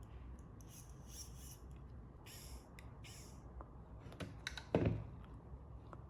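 Small plastic parts being handled as the lever arm is fitted onto a finger-robot switch pusher: a few short rubbing scrapes, then several sharp clicks, the loudest about five seconds in.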